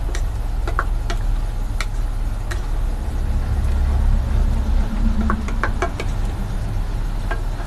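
A spatula stirring a simmering tomato-and-egg sauce in a nonstick pan, with scattered light knocks against the pan. A steady low hum runs underneath.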